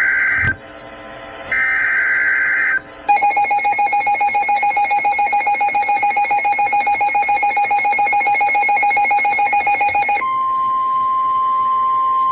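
Emergency Alert System tones: two short screeching bursts of the digital SAME header, then a pulsing alert tone for about seven seconds, switching near the end to a steady single-pitch tone like the NOAA Weather Radio 1050 Hz warning alarm. This signals the start of a new severe thunderstorm warning broadcast.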